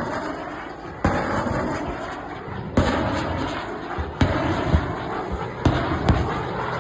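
A series of about six sharp explosive blasts a second or so apart, each followed by a long rolling rumble: explosions from a live-fire military exercise.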